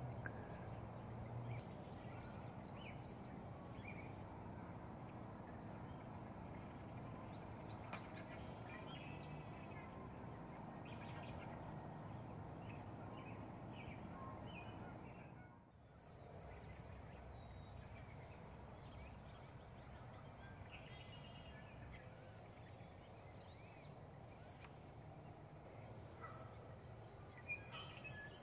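Faint outdoor ambience of scattered short bird calls and chirps over a steady low hum, with the background briefly dropping out about halfway through.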